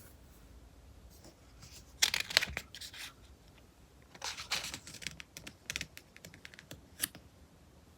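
Magazine pages being handled and turned: two bursts of paper rustling about 2 and 4.5 seconds in, followed by a few light ticks and taps.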